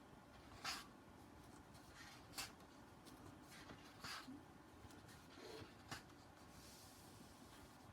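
Faint paper handling: four short rustles or taps, one roughly every second and a half, then a longer soft rustle near the end.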